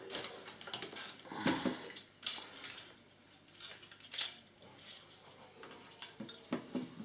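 Irregular metallic clicks and clinks as a CPU cooler's metal retention clip and heatsink are worked against the motherboard's plastic mounting bracket, the loudest knocks a couple of seconds and about four seconds in.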